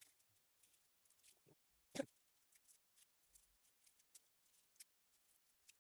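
Faint, scattered crackles of dry, papery garlic skin as a garlic bulb is broken apart into cloves by hand, with one louder sound about two seconds in.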